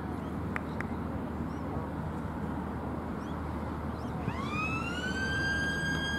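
A siren wail starts about two-thirds of the way in: a tone rising for about a second, then held steady at a high pitch. Under it there is a steady outdoor background hiss.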